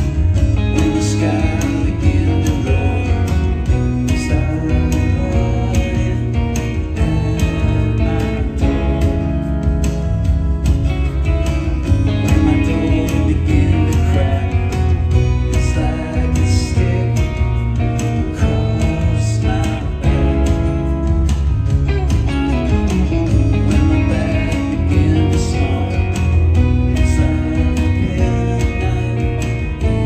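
Live band playing: strummed acoustic guitar over electric bass and electric guitar, with singing.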